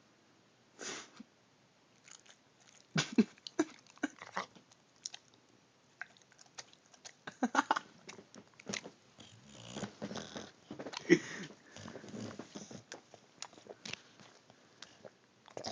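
English bulldog eating ham: irregular chewing with short wet mouth clicks, coming in clusters.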